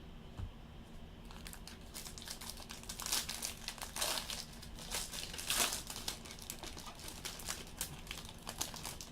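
Foil trading-card pack wrapper crinkling and crackling as it is handled and torn open. The crackles come irregularly and are busiest through the middle.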